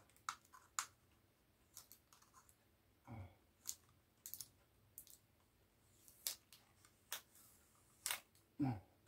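Faint, scattered clicks and taps of hands handling the plastic body of a small camera drone during disassembly.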